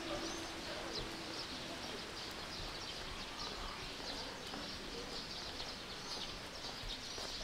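Many small birds chirping over a steady outdoor background noise, with short high chirps coming thick and fast.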